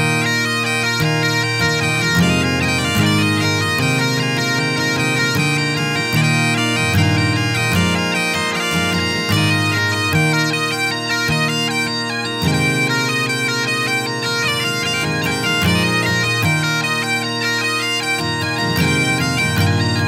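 Highland bagpipes playing a tune over their steady drones, with double bass notes moving underneath, in a Scottish folk band arrangement.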